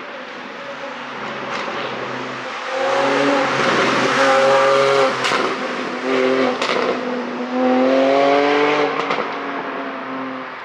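Porsche 718 Boxster 4.0 GTS flat-six revving through a Milltek link pipe exhaust, its pitch climbing three times, with sharp exhaust pops from the ECU pop-sound tune as the revs drop.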